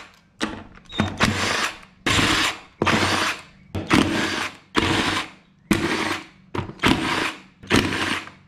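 Cordless drill spinning 10 mm bolts out of a supercharger lid with a socket, in short runs of about half a second, roughly one a second, eight or so in a row.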